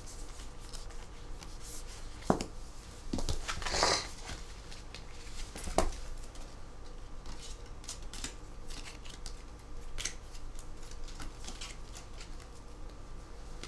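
Photocards being flipped through by hand: scattered light clicks and taps of card on card, with a brief papery rustle about four seconds in.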